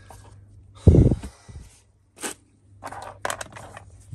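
Handling noise from steering-rack repair-kit parts: a heavy thump about a second in, then crunching, rustling scrapes.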